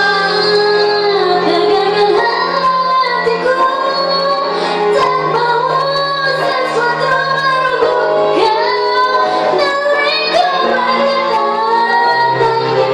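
Two female voices singing a melody over musical accompaniment.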